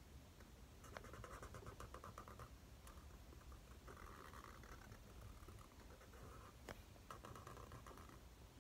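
Faint felt-tip marker strokes scratching across paper, in three runs of strokes about a second long each.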